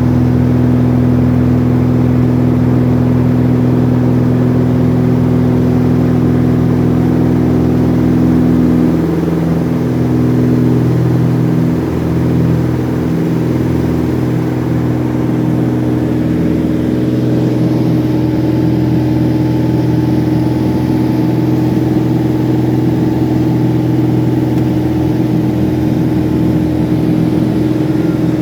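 Light aircraft's piston engine and propeller running steadily during a landing approach. The engine tone shifts about nine to twelve seconds in, as power is changed, then settles into a new steady drone.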